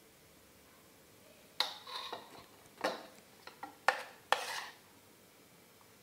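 Metal spoon clinking and scraping against enamel bowls and a cake pan as batter is scooped and dropped in: four sharp clinks with smaller knocks and scraping between them, starting about a second and a half in and stopping near five seconds.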